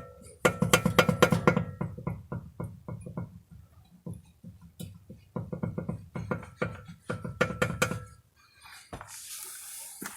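Subaru Forester SG drive shaft knocking: rapid metallic clicks, several a second, in three bursts with a slight ringing, then a short hiss near the end. The knock is put down to axial play in the drive shaft.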